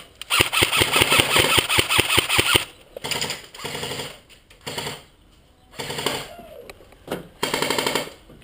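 Airsoft gun firing full-auto bursts: one long rattling burst of about two seconds, then four shorter bursts.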